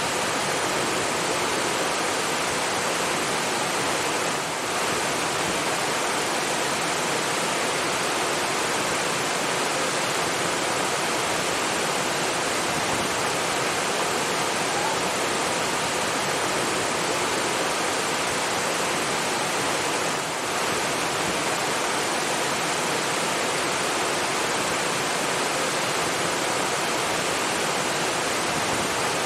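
Steady rushing of flowing water, a dense even hiss without breaks.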